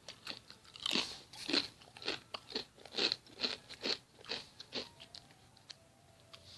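Kettle-cooked potato chips being bitten and chewed: a run of crisp crunches, about two a second, that die away near the end.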